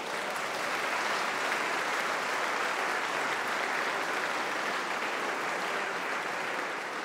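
Large audience applauding, a dense, steady clapping that begins to ease off near the end.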